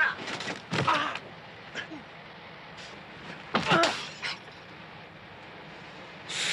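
A person's voice in two short wordless outbursts, one at the very start and a briefer one about three and a half seconds in, over a steady low hiss.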